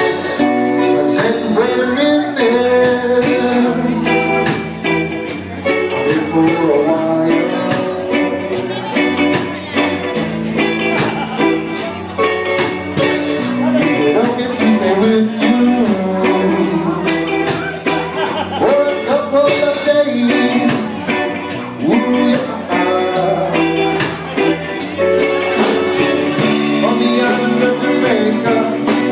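A band playing live with a singer, guitar and a drum beat.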